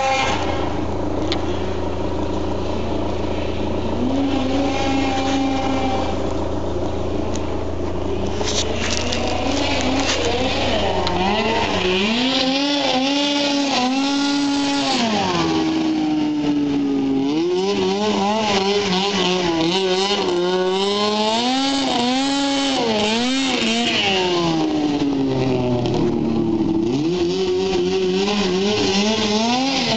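Ski-Doo Blizzard snowmobile's Rotax 503 two-stroke twin running, fairly steady at first, then climbing and dropping in pitch again and again as the throttle is opened and eased off. It misfires as the revs come up, which the owner puts down to a faulty ignition, with the CDI box or the ignition timing as possible causes.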